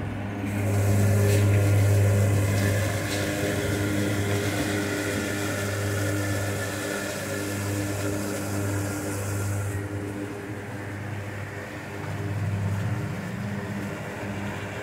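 Remote-controlled four-wheeled mower running as it cuts tall grass and weeds: a steady low hum, with a hissing higher layer that drops away about ten seconds in.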